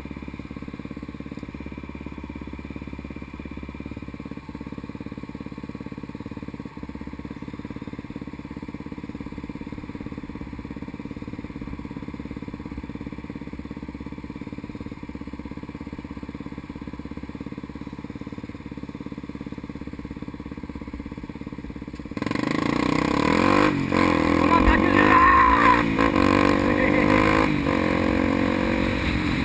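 Honda XR 250 Tornado single-cylinder four-stroke engine idling steadily. About three-quarters of the way through it suddenly revs up and pulls away, its pitch rising and falling through the gears with wind rush on the microphone.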